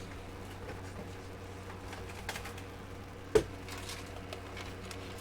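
Light clicks and taps of small mechanical keyboard parts being handled during a keyboard build, with one sharp, louder knock about three and a half seconds in, over a steady low hum.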